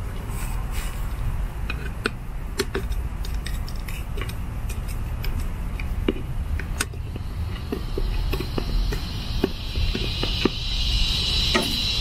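Small clicks and taps of a screwdriver and screws on the plastic bonnet of a Hunter PGV sprinkler valve as the bonnet screws are put back in. A low steady rumble runs underneath, and a high hiss swells from about halfway through.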